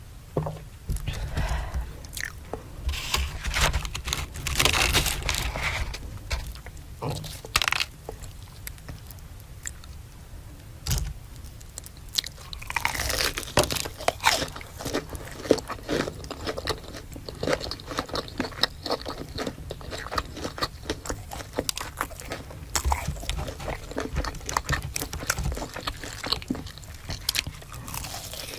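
Biting into and chewing crunchy fried food, with rapid crisp crunches coming in bursts and short pauses between.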